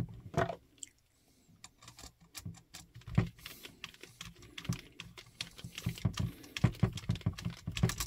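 Small irregular clicks and scrapes of a Klein 15-in-1 screwdriver turning the terminal screw on a three-way switch, tightening a looped wire under it.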